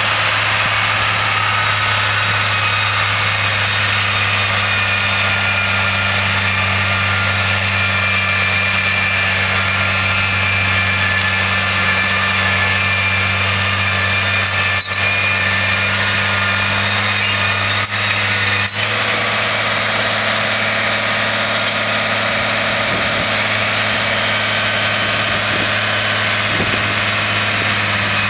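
Case tractor engine running steadily at working revs while driving a Taarup trailed forage harvester that picks up and chops grass and blows it into a silage trailer: a steady low drone with a higher machine whine over it. The sound briefly cuts out twice past the middle.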